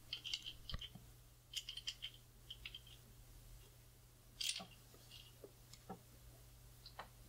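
Small sharp clicks and light metal taps in short clusters as a tripod ball head and its quick-release plate are handled. One louder scraping click comes about four and a half seconds in, over a faint steady hum.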